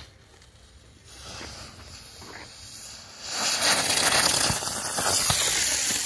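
Xplode Smoke Bird smoke firework burning. A faint fizz swells about a second in, then turns into a loud, steady hiss about three seconds in as the red smoke charge pours out.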